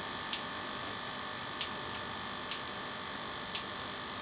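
Quiet room tone: a steady electrical hum and hiss, with a few faint, short ticks scattered through it.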